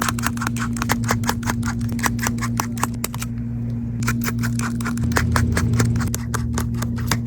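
Rapid, irregular clicks and small taps of hand tools working on an opened smartphone, over a steady low hum.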